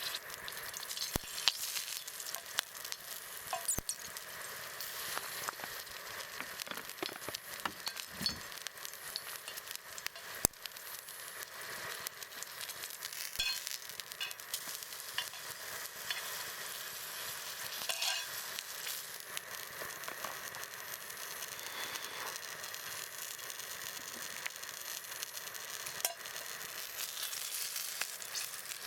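Food sizzling and frying in a cast-iron pan, a steady hiss with scattered sharp ticks and clicks.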